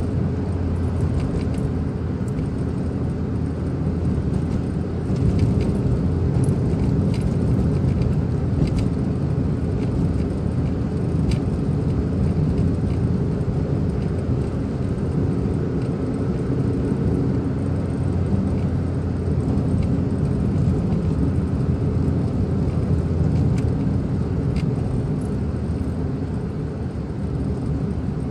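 Car driving, heard from inside the cabin: a steady low rumble of engine and tyres on the road, with a few faint clicks.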